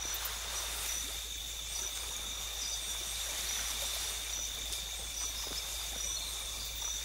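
Night swamp ambience of insects: a steady high trill with regular short chirps over a soft hiss.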